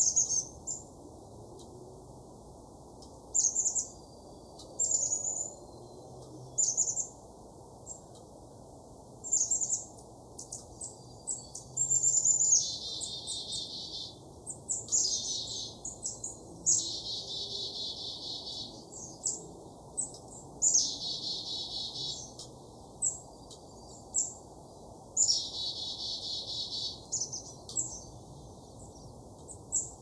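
Small songbirds chirping, with short high chirps throughout and several buzzy trills of a second or two each in the middle stretch.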